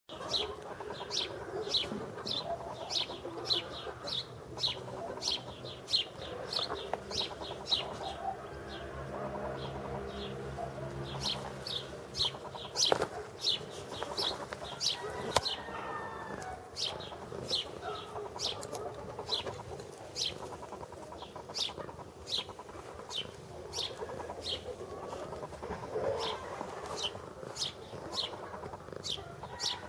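Outdoor birdsong: a small bird chirping sharply and repeatedly, about two high chirps a second, over a layer of other bird calls.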